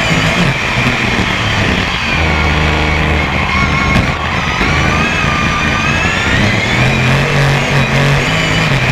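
BriSCA F1 stock car's V8 engine at racing speed, heard from the on-board camera, its pitch rising and falling as the revs change, with a sharp knock about four seconds in.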